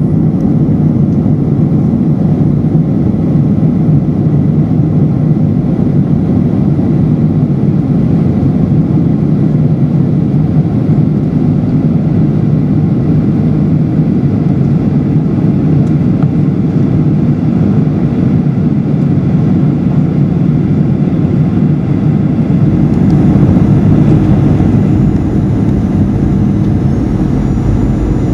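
Aircraft cabin noise in flight: a steady, low rush of engines and airflow with a faint even hum, swelling slightly about four-fifths of the way through.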